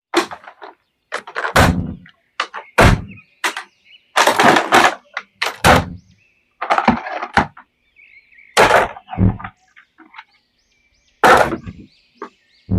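Irregular knocks, clicks and short rustles of plastic toy action figures and their packaging being handled during unboxing.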